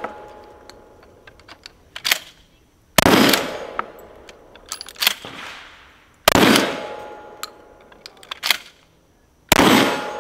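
A 12-gauge pump-action shotgun fires three shots, roughly three seconds apart. Between shots, sharp metallic clicks come from the shooter racking the action and feeding in a single shell by hand.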